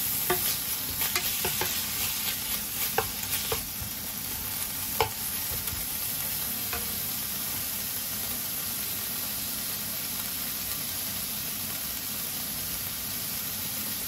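Thin-sliced pork sizzling steadily in sesame oil in a non-stick frying pan, with a few taps and scrapes of a wooden spatula against the pan in the first five seconds, then only the sizzle.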